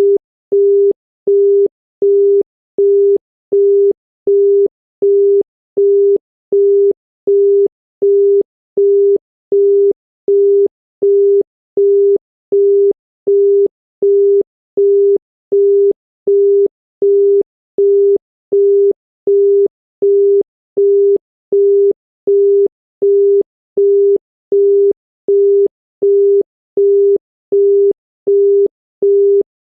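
UK telephone busy tone: a single 400 Hz tone beeping on and off in an even rhythm, 0.375 s on and 0.375 s off, signalling that the called line is engaged.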